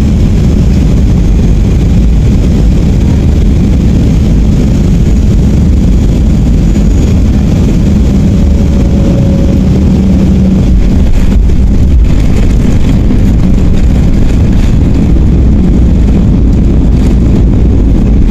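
Loud, steady cabin noise of a Boeing 737-800 landing, heard at a window seat over the wing: the CFM56-7B turbofan engines and rushing air rumble as the jet comes down over the runway, touches down and rolls along it.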